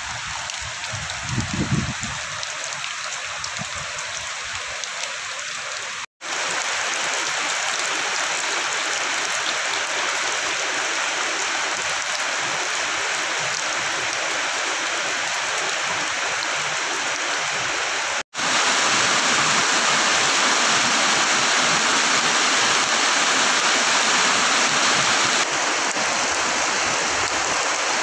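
Heavy rain falling steadily, a dense even hiss of rain and running water, with a brief low rumble about a second and a half in. The sound cuts out for an instant twice and comes back slightly louder each time.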